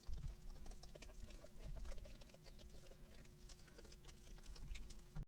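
Faint handling noises: many small scattered clicks and taps with light rustling, over a low steady hum.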